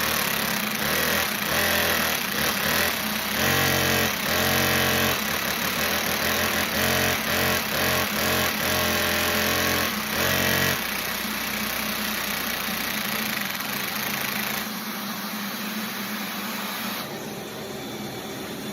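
Engine running and revved in repeated short blips for about ten seconds, then running steadily and dropping away in two steps near the end.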